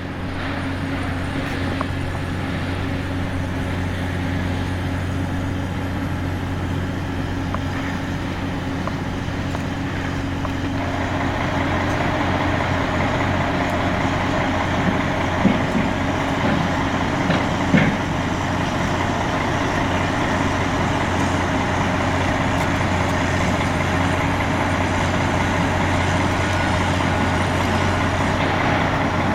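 Engine of heavy machinery running steadily with a low hum, working harder from about 11 s in, with a few sharp knocks between about 15 and 18 s.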